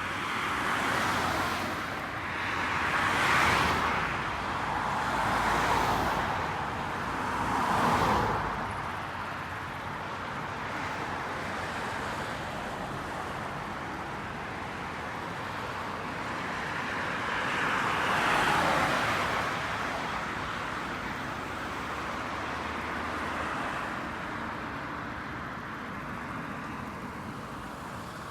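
Highway traffic: a steady hum of tyre and road noise, with individual vehicles passing close, each swelling and fading over a second or two. Four pass in quick succession in the first eight seconds, and another about eighteen seconds in.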